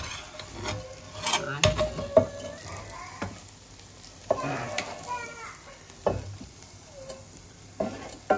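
Metal spatula scraping and knocking against a black wok as fried egg manchuria pieces are scooped out onto a steel plate, with the food still sizzling in the hot pan. About half a dozen sharp scrapes and knocks come at irregular intervals.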